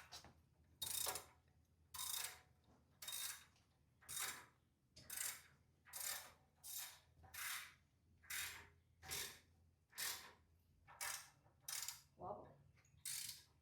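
Socket ratchet wrench clicking in short, even strokes, about one a second, as a bolt is run down.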